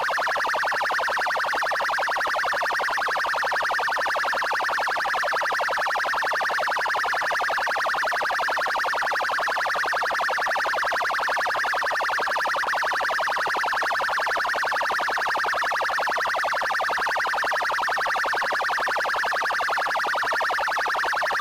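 Police siren sounding its 'trail' tone: a fast, even warble with no pauses.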